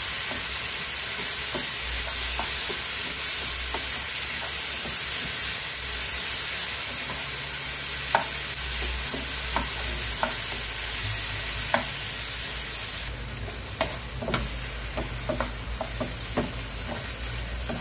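Chopped tomatoes and onions sizzling in hot oil in a frying pan while a wooden spatula stirs them, with scattered knocks and scrapes of the spatula against the pan. The sizzle grows quieter about thirteen seconds in, and the spatula knocks come more often after that.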